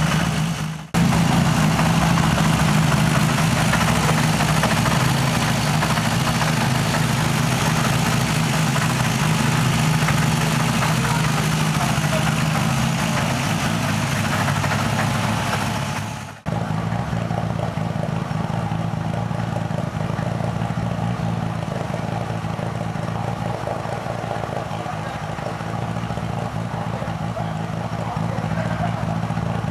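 Nissan RB26 straight-six in a 1000 PS Silvia S15 drift car idling steadily at an even pitch, with two brief dropouts: one about a second in and one about halfway through.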